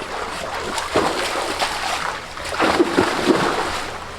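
Irregular water splashing and sloshing.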